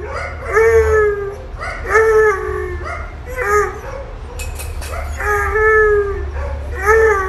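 A Bluetick Coonhound howling in a run of about five drawn-out bawling calls, each under a second long, several dropping in pitch at the end.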